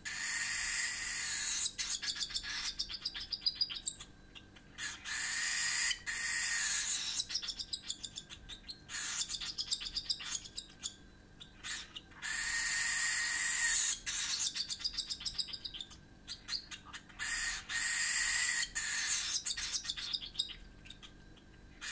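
Cockatiel chick making raspy, hissing food-begging calls while feeding, in bursts of one to two seconds about every five seconds, with rapid clicking between.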